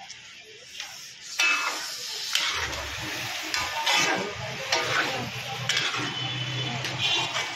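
Metal spatula scraping and stirring spiced chicken pieces in a kadai, one scraping stroke about every second.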